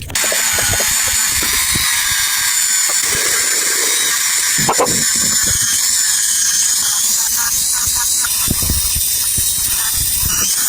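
A power or abrasive tool working on the metal of a watch: a loud, steady hiss with a thin squeal over it, starting suddenly.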